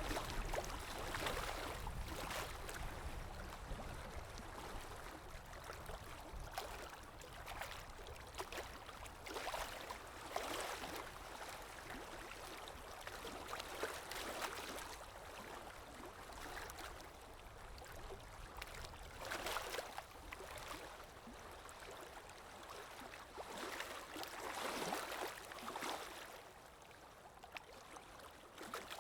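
Small waves lapping and splashing against a shore or hull, in irregular surges every few seconds, over a steady low rumble of wind.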